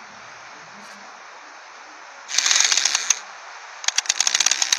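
Cartoon sound effect of rapid, dry clicking and rattling, in two bursts: one a little past two seconds in that lasts under a second, and another starting about a second later that runs on to the end.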